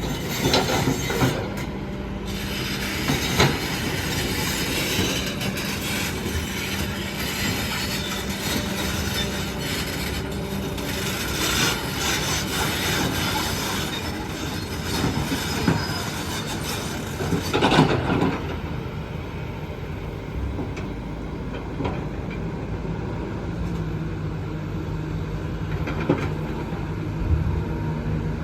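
Kobelco hydraulic excavator working: the diesel engine runs steadily under load, with squealing metal and scattered clanks and knocks. The squealing and clatter are heaviest for the first two-thirds, then ease off to the engine running more evenly.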